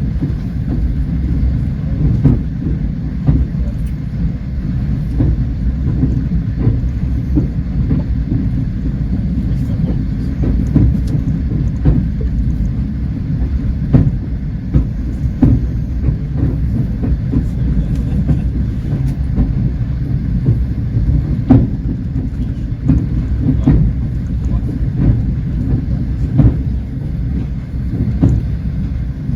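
Passenger train running at speed: a steady low rumble of wheels on the rails, with irregular clicks and knocks as the wheels pass over rail joints.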